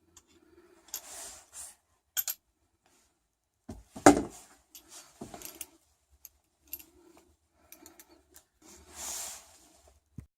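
Wheelbarrow wheel hub and bearings being handled while they are re-greased: small metal parts clinking and rubbing, with a sharp knock about four seconds in and another a little after.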